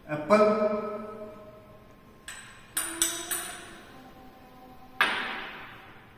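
Steel spoon clinking against ceramic bowls as diced apple is spooned into a mixing bowl: a quick run of three or four ringing clinks after about two seconds, then one more about five seconds in.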